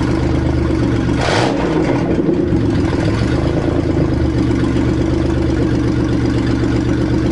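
1999 Buick Century's 3.1L V6 running loud through a straight pipe with no exhaust system. About a second in there is a short rush of noise and the engine note shifts, then it settles back to a steady run.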